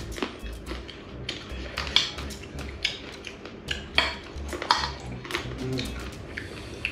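Metal spoons clinking and scraping against stainless steel bowls while eating, in irregular short clicks with a few louder knocks.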